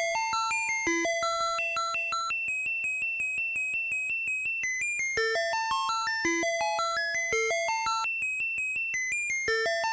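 Electronic school bell chime playing a synthesized melody over a quick, even accompaniment, the phrase repeating about every four seconds.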